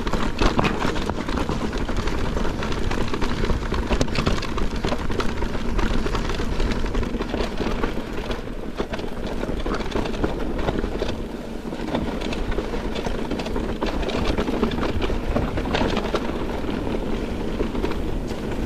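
Mountain bike descending a rough, stony trail: a continuous rumble of tyres over rocks and gravel, with dense rattling and clicking from the bike as it is shaken about.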